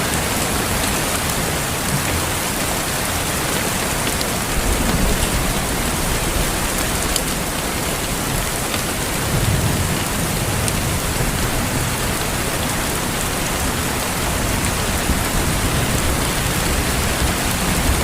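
Steady rain falling, an even hiss with faint scattered drop ticks. Brief low rumbles swell about five and ten seconds in.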